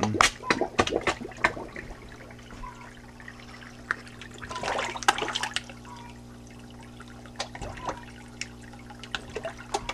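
Water trickling and splashing in an IBC tote fish tank, with sharp splashes and slurps as goldfish and koi take floating feed pellets at the surface, busiest in the first two seconds and again about five seconds in. A low steady hum runs underneath.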